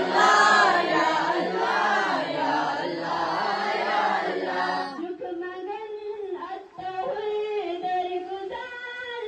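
A group of school students sings a Kashmiri prayer in unison, many voices together. About five seconds in, the chorus drops away and a single voice carries the chant on alone.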